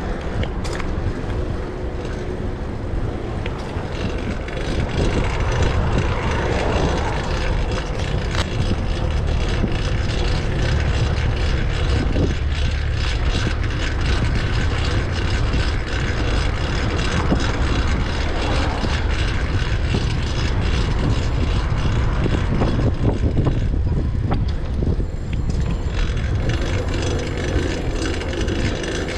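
Wind rushing over the microphone and road noise from riding a fixed-gear bicycle, with a faint steady whir and ticking from the drivetrain, which is loud on its new rear cog.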